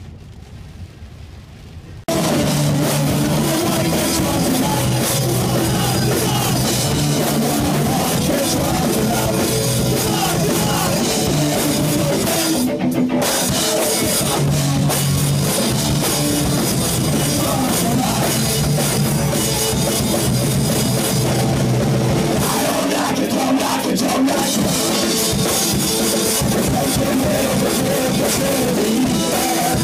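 Loud punk rock band playing, with drum kit and guitar and some singing, cutting in abruptly about two seconds in.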